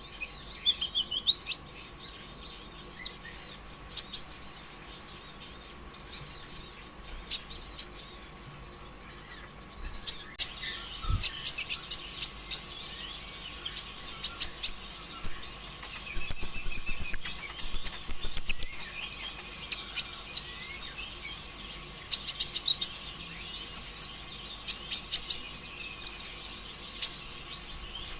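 A kolibri ninja sunbird (konin) singing a fast, high chattering song: strings of sharp ticks, short trills and rapid twittering runs, denser and louder in the middle and again towards the end.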